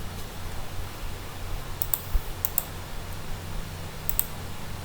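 Scattered clicks of a computer keyboard and mouse, some in quick pairs, a few per second at most, over a steady low hum.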